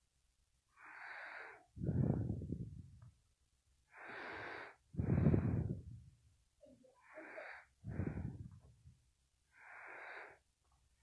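A person breathing close to the microphone, about every three seconds: each breath is a short hissing intake followed by a louder blowing exhale that rumbles on the mic. There are three full breaths, with a fourth intake near the end.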